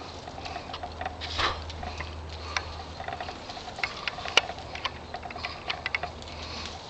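Cherry tree leaves and twigs rustling, with irregular small clicks and snaps as cherries are picked by hand; one sharper snap about four seconds in.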